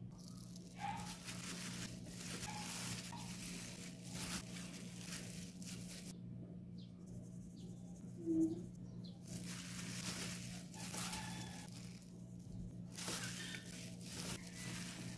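Rustling and scraping of salad ingredients being tossed and mixed by hand in a ceramic dish, in stretches of a few seconds, over a steady low hum.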